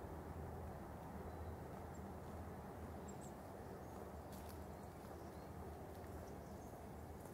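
Streetcar heard from inside the car while it runs along its track: a steady low rumble and hum, with a few faint ticks.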